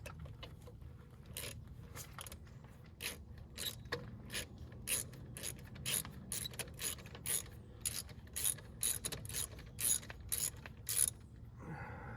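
Hand ratchet wrench clicking in short, repeated strokes, a sharp tick every third of a second or so, as a fastener is worked in the engine bay.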